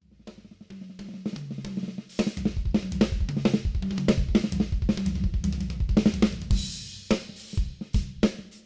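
A drum kit being played: lighter separate strokes for about two seconds, then a fast, busy pattern of bass drum, snare and cymbals that thins out to separate hits near the end.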